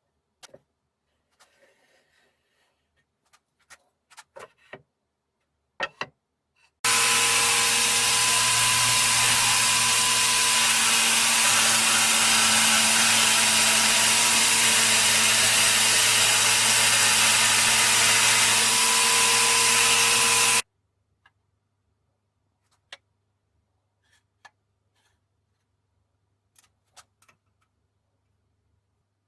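Electric jigsaw running and cutting through wood for about fourteen seconds, switching on and off abruptly, with a steady motor hum under the cutting noise. Faint handling clicks and taps before and after the cut.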